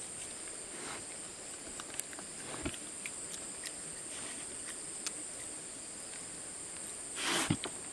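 Steady high-pitched insect drone, with scattered small clicks and snaps and a brief louder rustle near the end.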